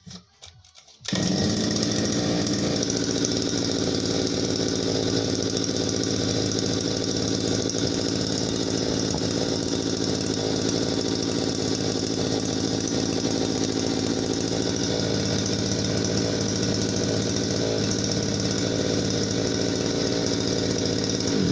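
Small two-stroke engine of a Chinese petrol trimmer running steadily, cutting in suddenly about a second in, after faint clicks; the engine is running again after its piston group was replaced and its carburettor adjusted.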